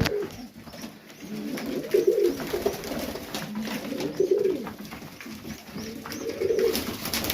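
Serbian highflyer pigeons cooing in the loft, with low rolling coos coming about every two seconds.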